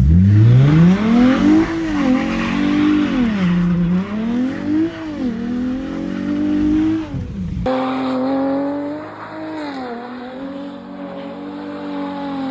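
Car engine revving hard: it climbs sharply at first, then rises and falls over and over as the car slides in the snow. About three-quarters of the way through the sound cuts abruptly to a steadier engine note.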